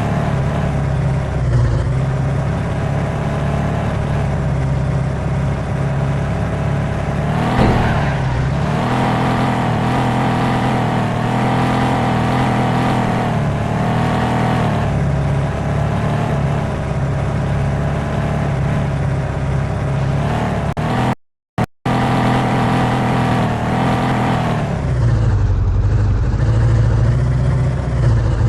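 Car engine running steadily, its pitch rising and falling several times as it revs, with a brief break in the sound about 21 seconds in.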